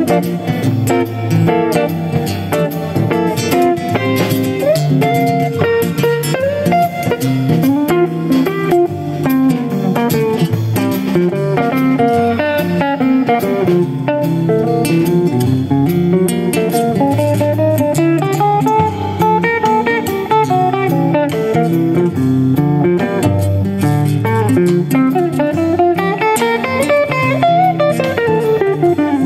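Instrumental break of a song: a guitar plays a melody with bending, sliding notes over a steady bass and rhythm backing.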